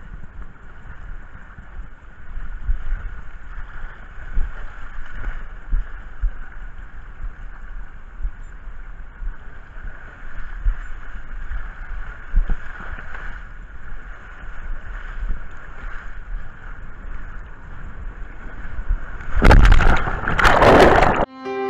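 Water rushing down a fibreglass body slide as a rider slides through it, with low thuds and wind on a microphone riding along. Near the end comes a loud splash as the rider plunges into the pool.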